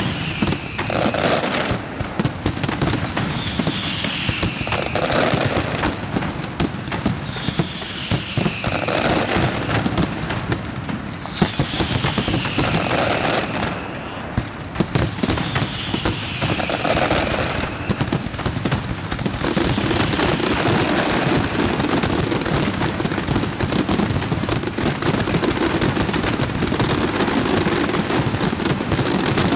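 Large aerial fireworks display: a dense, continuous crackle of bursts and bangs. In the first half, whistles falling in pitch come about every four seconds. From about two-thirds of the way in, the bangs run together into an unbroken barrage.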